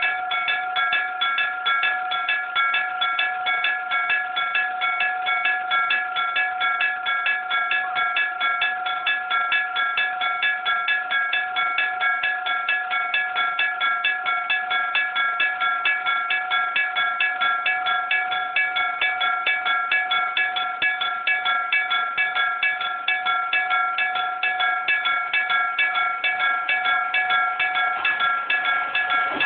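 Electric-bell (denshō-type) railway level-crossing warning bell ringing 'kan, kan, kan' in a steady, even run of rapid metallic strikes.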